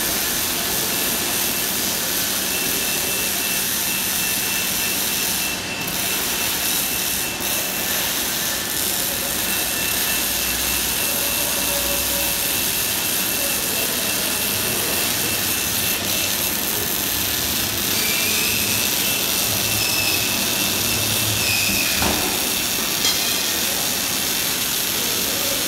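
MIG welding arc on steel: a steady crackling hiss, with two brief dips about six and seven seconds in.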